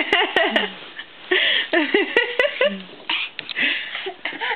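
A toddler's high-pitched voice making a string of short vocal sounds and babble, without clear words.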